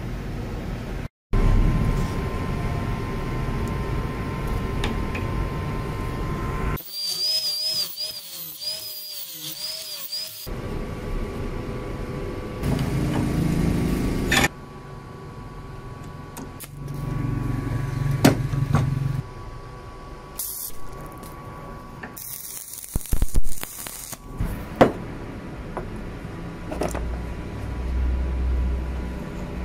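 Metalworking at a bench vise in short, cut-together clips: a small power tool whines for a few seconds with its pitch wavering, and there are several sharp metal knocks and clinks.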